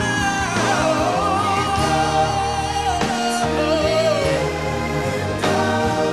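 Male vocal quartet singing a slow R&B ballad live, a lead voice sliding through long held notes over the group's harmonies and a band backing.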